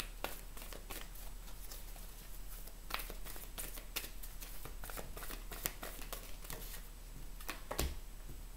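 A deck of oracle cards being shuffled by hand: a faint, irregular run of soft card flicks and clicks. A single stronger knock comes near the end as a card is laid on the table.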